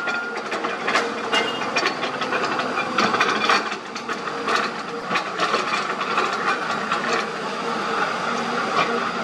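Hyundai 220 hydraulic excavator and a diesel dump truck running close together, a steady dense machine noise, while the excavator's bucket digs into earth with many sharp knocks and scrapes throughout.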